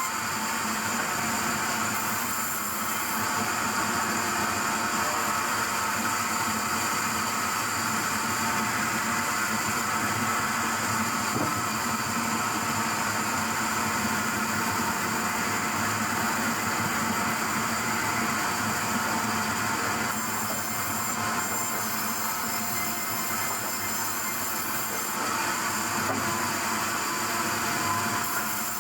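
Sawmill saw running steadily through a log: a continuous mechanical whine over a hiss of cutting, with no pauses.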